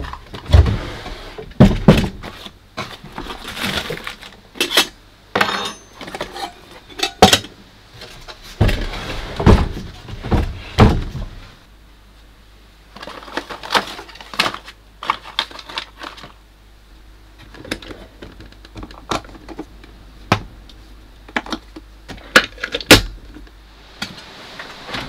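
Clatter of rummaging through wooden cabinetry: drawers and cupboard doors opening and shutting, and things knocking and being set down, in a string of sharp knocks and clicks.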